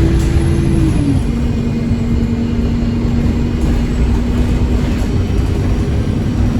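Stagecoach South bus 26158 running under way: a low engine rumble with a steady drivetrain whine that drops to a lower pitch about a second in and then holds.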